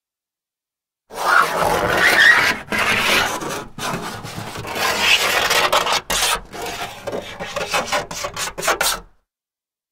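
A metal key scratching along a car's painted body: a long, scraping drag starts about a second in, then breaks into a run of short, quick strokes and stops suddenly near the end.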